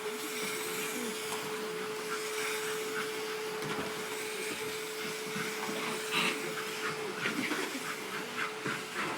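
Hoover vacuum cleaner running with a steady motor hum and airflow noise; its held tone drops out about seven seconds in. Near the end comes a quick run of short scratchy sounds.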